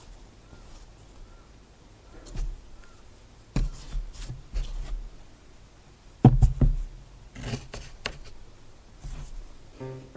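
Hands rummaging through felt scraps in a wicker basket: soft handling noise with scattered knocks and thumps, the loudest about six seconds in.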